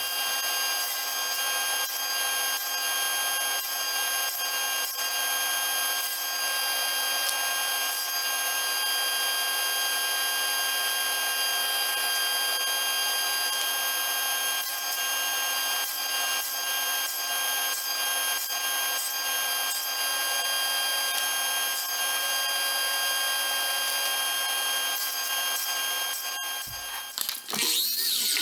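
Handheld electric power tool running at a steady speed, its motor giving a constant whine, with light ticks of the tool on the wood. Near the end the motor drops away briefly and winds back up.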